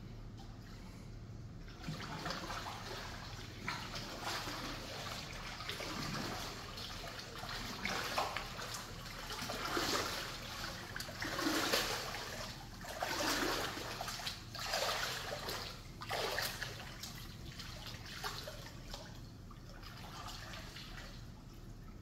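Water splashing and trickling in irregular surges, strongest about halfway through and fading away near the end.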